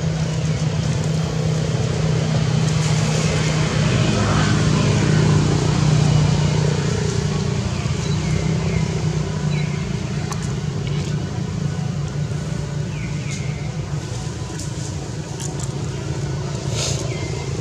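A steady, constant engine hum, like a motor vehicle idling close by, with a few short high falling chirps over it.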